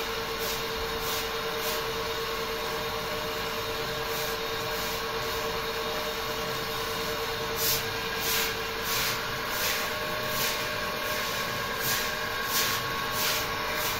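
Stiff broom swishing over a wet concrete floor in regular strokes, about three every two seconds, over a steady hiss of water running from a hose and a faint steady hum. The strokes turn louder about halfway through.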